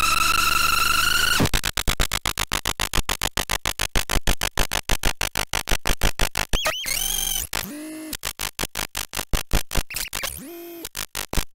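Circuit-bent toy sound-effects sampler, recorded directly from a jack output in place of its speaker, playing a glitched sound effect through a bend point bridged by fingers on added touch contacts. A held buzzy tone breaks up about a second and a half in into a fast stuttering run of clicks, interrupted twice by short pitched bursts.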